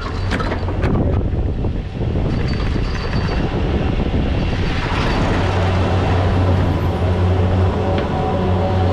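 POMA Challenger detachable chairlift running through its terminal: knocking and rattling, then from about halfway a steady hum from the lift's 350-horsepower drive motor.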